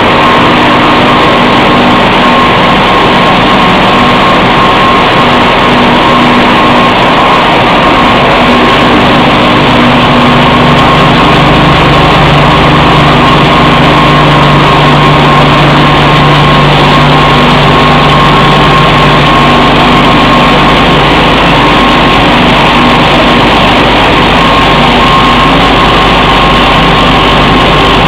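Wood pellet production line running: the motors, augers and conveyor of the pellet machinery make a loud, steady mechanical noise with a constant whine. A lower hum grows stronger about ten seconds in and eases off around twenty seconds.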